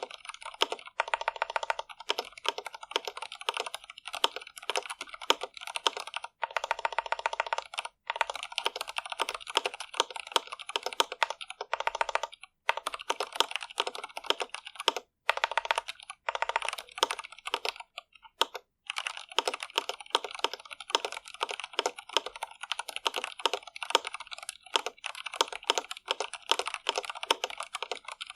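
Typing on a stock Iqunix L80 mechanical keyboard with linear Cherry MX Red switches: fast, steady runs of key clacks, broken by a few short pauses.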